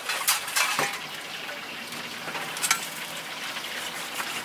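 Cleaver knocking on a wooden chopping block as raw fish is cut, a few sharp strokes in the first second and one more partway through, the last with a short metallic ring, over a steady hiss.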